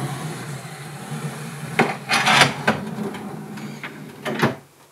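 Plywood drawer running on metal ball-bearing drawer slides: a rattly rolling sound with sharp clicks about two seconds in, then a knock near the end as the drawer is pushed shut.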